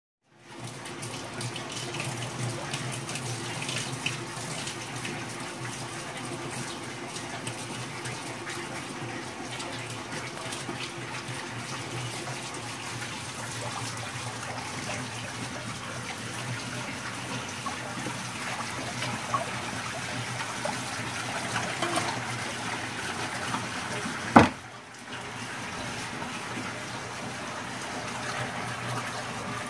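Water pouring over an acrylic tank's overflow into the tank below, a steady splashing with a low hum underneath. A single sharp knock about three-quarters of the way through.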